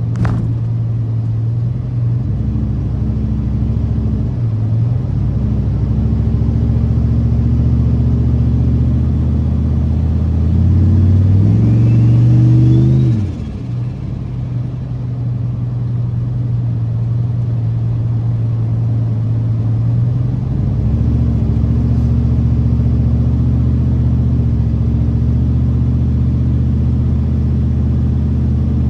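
Turbocharged car engine running while driving, mostly steady. About ten seconds in it accelerates, its pitch climbing with a faint rising turbo whistle above it. Just past thirteen seconds the throttle is lifted and the sound drops off suddenly.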